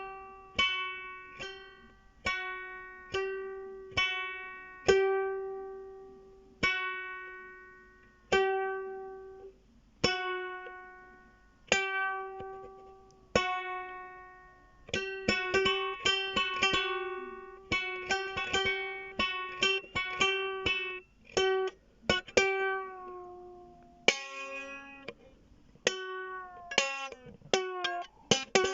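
A plucked string instrument played solo, one ringing note at a time. The same note recurs often. The notes come slowly at first and in a quicker run from about halfway through.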